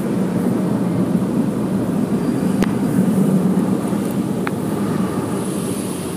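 Automatic tunnel car wash heard from inside the car cabin: a steady, low, muffled wash noise of the machinery working on the car, with two brief sharp clicks about midway.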